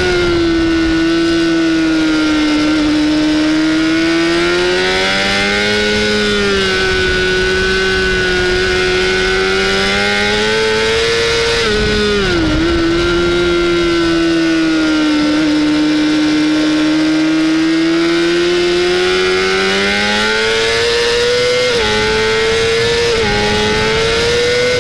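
Honda CBR600RR inline-four engine at high revs, heard onboard over wind rush. Its pitch sags and rises slowly through long corners and dips sharply about halfway through. Near the end it climbs in steps, with a sudden drop in pitch at each upshift, three times.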